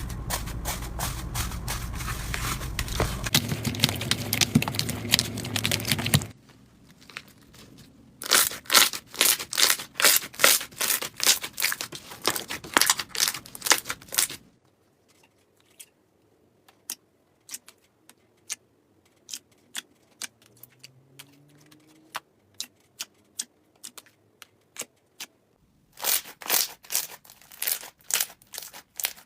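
Slime being squeezed and stretched by hand, giving runs of rapid sticky crackling and popping clicks, dense at times and sparse in the middle.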